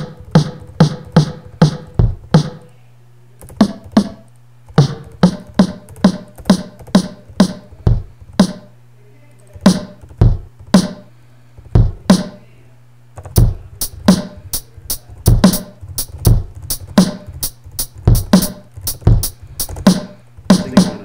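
A beat of sampled drum hits played from an MPC X-style software drum plugin, deep kick-like thumps mixed with brighter snare hits, including a freshly loaded snare sample. The beat breaks off briefly about three, nine and thirteen seconds in, over a faint steady low hum.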